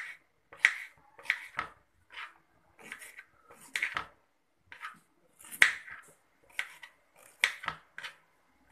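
Kitchen knife slicing a green bell pepper on a plastic chopping board: a dozen or so separate knife strokes at an uneven pace, each cut ending in a sharp tap on the board.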